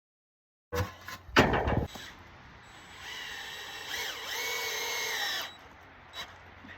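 Power drill running: a loud clatter first, then a steady motor whine that dips in pitch once, as if under load, and recovers before stopping.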